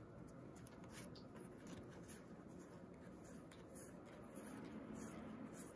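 Faint rustle and soft scraping of Magic: The Gathering cards sliding against each other as a freshly opened pack is fanned and flipped through in the hands.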